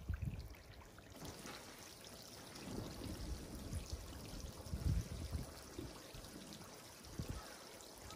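Water flowing steadily through a narrow roadside snow-melting channel, with a few dull low thumps mixed in.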